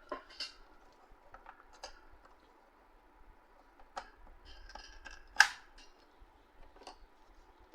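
Hands working on the open HP LaserJet M1005 printer: scattered small plastic clicks and knocks, with the sharpest click about five and a half seconds in.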